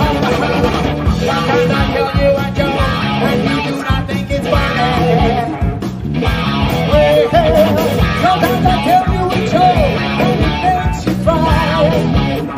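Rock band playing live: a steady driving beat with guitar, and a wavering melody line rising above it from about five seconds in.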